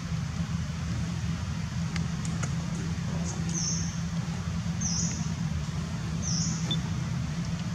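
Short high chirps, probably a bird, repeating evenly about once every second and a half from about three and a half seconds in, over a steady low hum.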